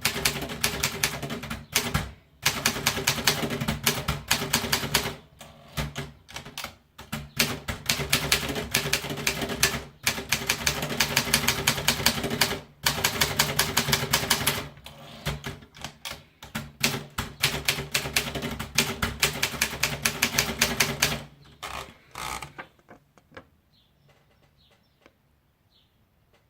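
Optima Elite typewriter being typed on: a fast, continuous run of keystroke clicks with short breaks every few seconds, stopping a little before the end. A few faint bird chirps follow.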